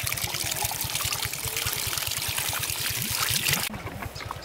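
Water poured from a bucket into a small petrol water pump's casing to prime it, gushing and splashing, and stopping near the end. A rapid, even low putter like a small engine runs underneath.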